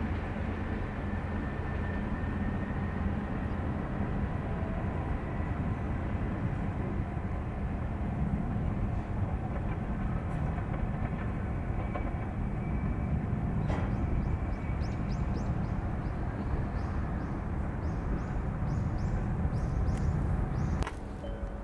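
Diesel railcar on the Kanto Railway Joso Line running with a steady low rumble, a quick series of short clicks coming in over the last several seconds. The sound drops off abruptly near the end.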